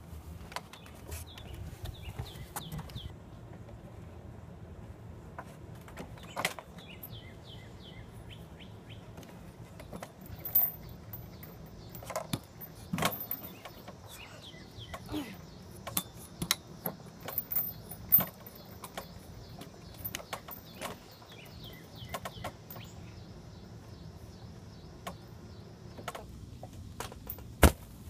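Scattered knocks, thumps and rustles from climbing about a wooden backyard play set and gripping its monkey bars, with the phone being handled, over a steady low rumble. Birds chirp in short quick runs of notes several times.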